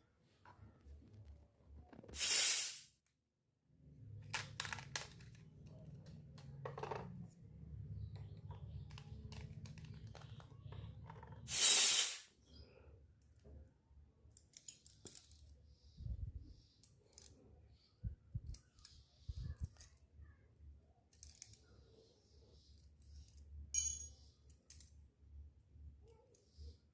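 Miniature toy kitchen pieces and their packaging being handled: light clicks and clinks, with two short, loud bursts of tearing or crinkling about two and twelve seconds in.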